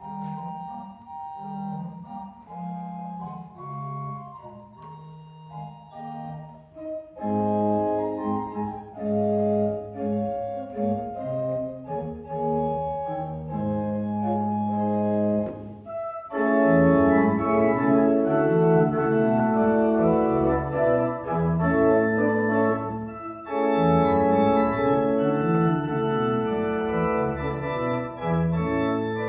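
Church organ playing a prelude in sustained chords over a moving bass line. It starts soft, grows louder about seven seconds in, and becomes fuller and louder still from about sixteen seconds.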